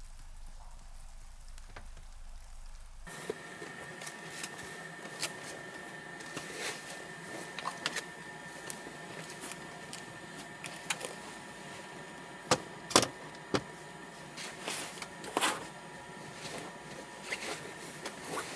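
Scattered clicks and knocks of things being handled, the loudest a few sharp knocks past the middle, over a faint steady whine that starts about three seconds in.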